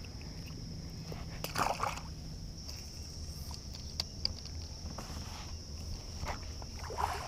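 Steady high-pitched insect drone, with brief splashing about one and a half seconds in and again near the end as a small rock bass is brought in to the kayak.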